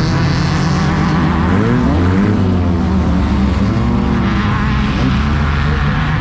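Class 10 desert race buggy's engine running hard, its pitch rising and falling twice as the revs climb and drop, over a steady rushing noise.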